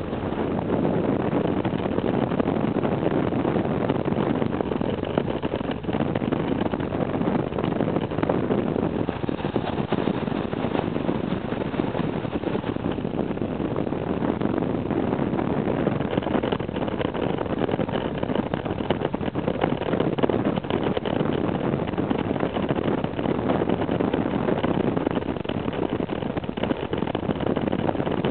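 Motorcycle engine running steadily at cruising speed, heard with the rush of wind over the microphone.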